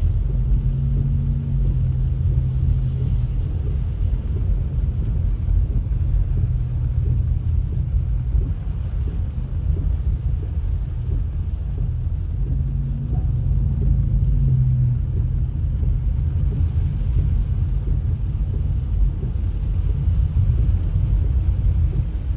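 Low, steady rumble of a car driving slowly on wet pavement, heard from inside the cabin: road and engine noise. A faint steady hum comes in near the start and again about halfway through.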